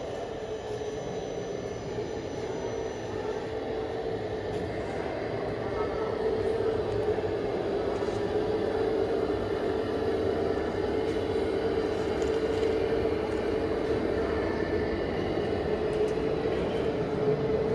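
Steady whine of radio-controlled model construction machines' electric drive motors and gearing, with a steady tone over a running hiss, growing louder about six seconds in.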